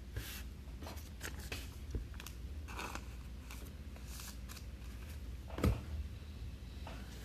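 Trading cards being handled: short scattered slides and rustles of cards, with one louder knock a little past halfway, over a steady low hum.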